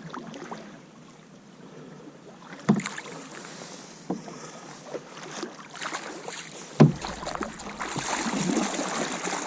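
Canoe being paddled: paddle strokes splashing in the water, with two sharp knocks, about three and seven seconds in. The splashing grows louder near the end.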